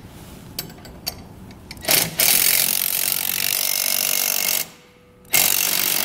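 A few light metal clicks as the socket and wrench are set on the jack wheel's bolt, then a cordless drill runs twice, each time for about two seconds with a short pause between, driving a 19 mm socket to tighten the wheel's nut and bolt.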